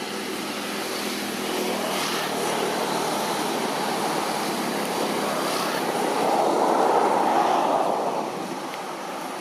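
A passing motor vehicle: a steady engine and road noise that swells gradually, peaks about seven seconds in, then fades.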